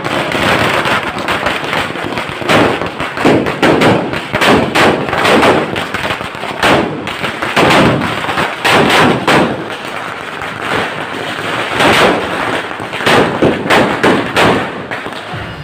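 A long string of firecrackers going off: a continuous, irregular run of sharp bangs, with louder cracks about every second.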